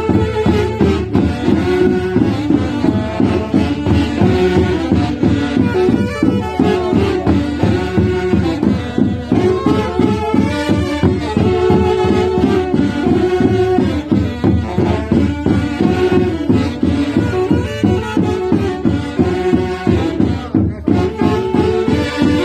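Live Andean folk orquesta playing a lively traditional tune with a steady beat.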